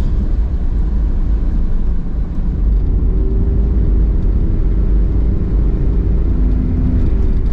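Car driving at steady speed, heard from inside the cabin: a constant low rumble of road and engine noise. A faint steady hum joins about three seconds in.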